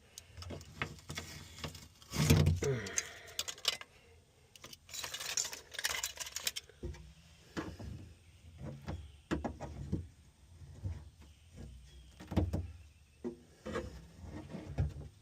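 Irregular scraping, knocks and clatter of hand work on a stripped car floor: factory sound deadening being pried and peeled off the sheet metal. Two longer scraping stretches come about two seconds in and from about five to six and a half seconds.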